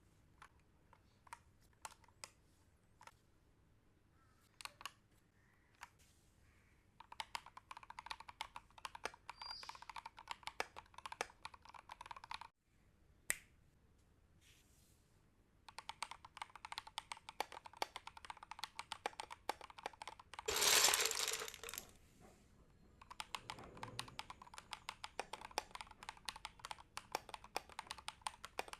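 Typing on a keyboard fitted with XDA-profile keycaps. It starts with scattered single keystrokes, then moves to runs of fast, continuous typing, with a short pause partway through. About two-thirds of the way in there is a louder rustling burst.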